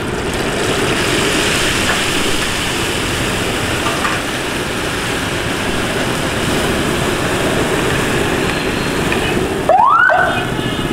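Malpua batter frying in a large iron wok of hot oil, a steady sizzle as it is spread and turned with steel spatulas. About ten seconds in, a brief, loud rising siren-like wail from the street cuts across it.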